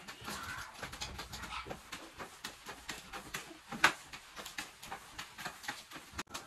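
A broom sweeping a tiled floor, with irregular scratchy strokes of the bristles and one sharp knock about four seconds in.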